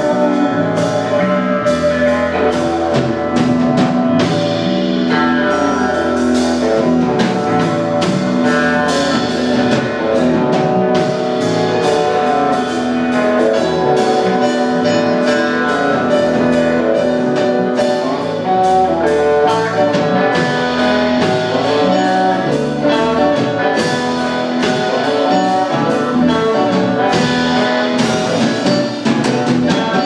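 Live band playing loudly: drums, bass guitar, keyboard and electric guitars together, with sustained notes over a steady drum beat.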